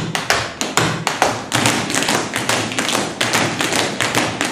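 A fast, uneven run of sharp taps and thuds, about five or six a second: dancers' shoes striking and stamping the hard studio floor in a footwork combination.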